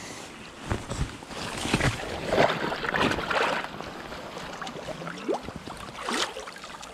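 Water splashing and sloshing in the river shallows as a large Atlantic salmon is beached on the grassy bank, with grass rustling. The splashing comes in irregular bursts, heaviest about two to three and a half seconds in.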